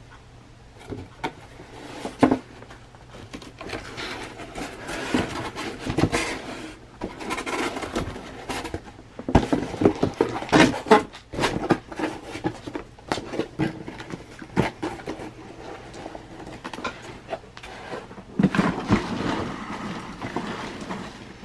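Cardboard shipping box being closed by hand, with its flaps and the bubble-wrap packing rustling, scraping and knocking in irregular bursts. The loudest bursts come around the middle and again near the end.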